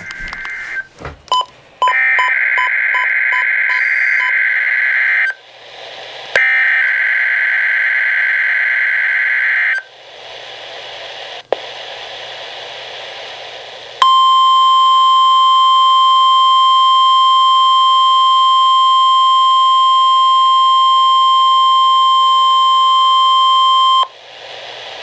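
NOAA Weather Radio test alert: harsh warbling bursts of SAME digital header data, two of them about three and a half seconds each, with radio static hiss between. About 14 s in, the steady 1050 Hz warning alarm tone sounds for ten seconds, then cuts off to static.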